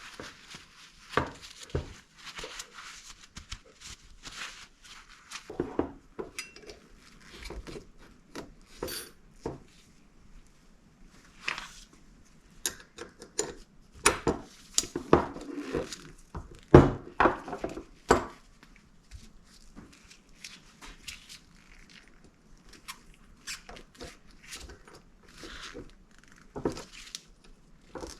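Small metal parts and hand tools clinking and knocking irregularly on a workbench as a motorcycle rear brake caliper is cleaned and handled. A cluster of louder knocks comes in the middle.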